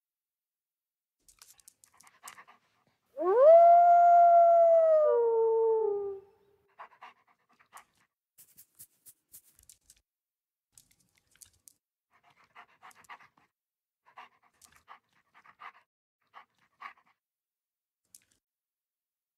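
Timber wolf howling: one long howl about three seconds in that rises quickly, holds its pitch, then drops in two steps and fades. Quiet panting breaths come in short groups before and after it.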